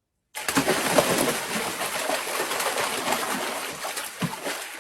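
A person's mouth-made sound effect of splashing water: a dense, hissing, spluttering noise that starts abruptly about a third of a second in and tapers slightly near the end.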